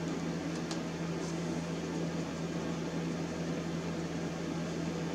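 Electric fan heater running with a steady low hum.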